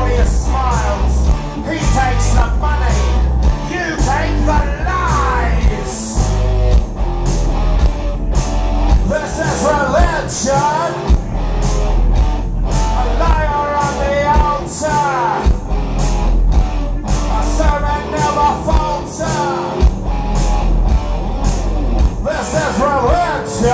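Live rock band playing: a male vocalist sings into a microphone over electric guitar, bass guitar and a steady beat, with a heavy bass.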